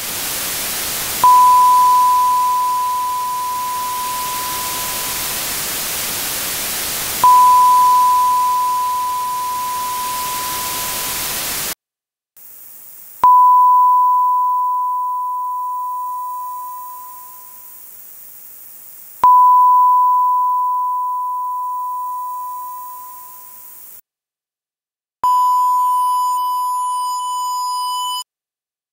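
A 1 kHz sine-wave ping plays five times, each starting sharply and fading out, with a 16-bit dither noise floor boosted 80 dB so it is plainly heard. Under the first two pings the dither is a loud, even hiss. Under the next two it is a quieter, high-pitched hiss of noise-shaped dither. The last ping has no dither hiss, only a rough buzz of distortion tones from undithered 16-bit truncation, and it cuts off abruptly.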